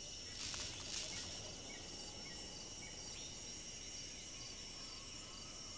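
Faint night ambience of crickets and insects trilling steadily, with two brief swells in the first second.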